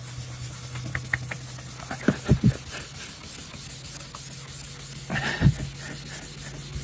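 Fine scouring pad scrubbing back and forth over an oxidised, yellowed plastic car headlight lens with cleaning gel: a soft rubbing, the first abrading step of a headlight restoration. A steady low hum runs underneath, with a few dull knocks about two seconds in and again near five seconds.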